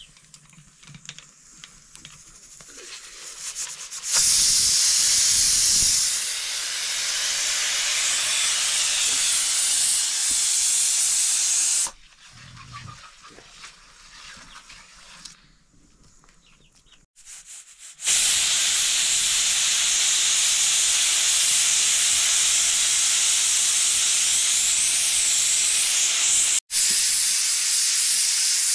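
Loud, steady hissing from cooking food over the fire. It starts abruptly about four seconds in, drops away for several seconds in the middle, then comes back just as loud.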